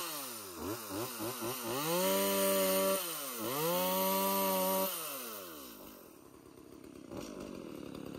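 Petrol chainsaw cutting overhead branches: the engine is blipped several times, held at full throttle twice, then drops back to a steady idle for the last few seconds.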